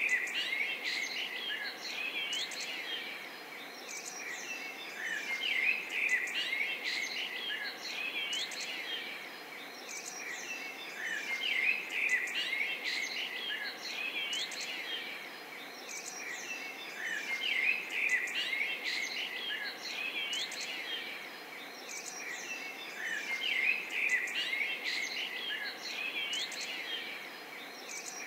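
Many songbirds chirping and whistling together, the chorus swelling and fading every few seconds over a soft steady hiss.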